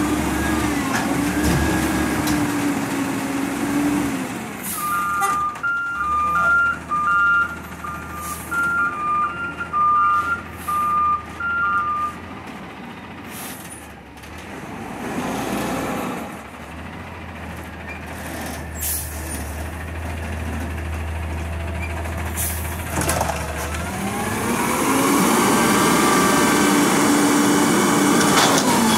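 Peterbilt 320 front-loader garbage truck with a McNeilus Meridian body at work. Its engine and hydraulics run with a steady whine at first. A two-tone backup alarm beeps for several seconds as it reverses, with a few metal clunks. About twenty-four seconds in, the engine revs up and the whine rises again as the front arms lift a dumpster overhead.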